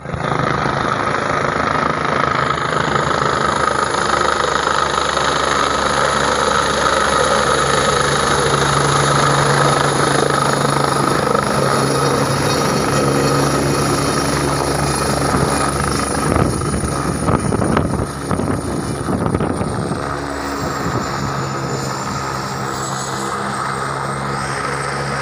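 Helicopter rotor and turbine engine running loudly and steadily as it comes in to land, with a high thin whine above the blade noise. Gusts of wind buffet the microphone briefly around two-thirds of the way through. Near the end the sound eases a little and the high whine slides down in pitch as the helicopter sits on the pad.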